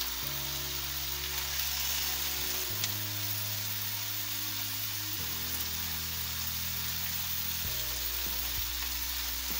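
Onions frying in oil in a frying pan, sizzling steadily as chopped pickles, garlic and pieces of butter are added. Soft background music with a slow bass line that changes every couple of seconds runs underneath.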